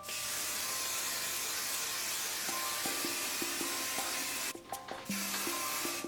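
Aerosol hairspray can spraying: one long hiss of about four and a half seconds, a brief stop, then a second, shorter spray.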